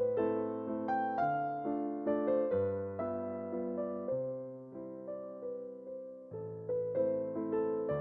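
Background solo piano music: a light, lilting tune, its notes struck and fading, with a new chord about every half second.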